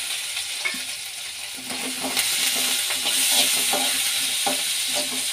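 Chopped ginger, garlic and green chillies sizzling in hot oil in a metal kadai. From about a second and a half in, a spatula stirs and scrapes the pan in quick repeated strokes, and the sizzle grows louder.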